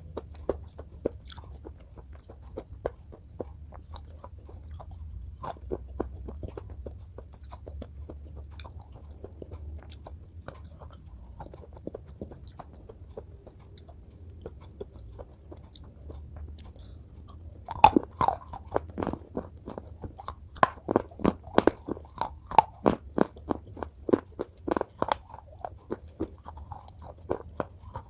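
Close-miked crunching and chewing of hard, brittle slate pencil pieces. Soft, scattered crunches turn into loud, rapid crunching bites a few per second from about two-thirds of the way in. A steady low hum sits underneath.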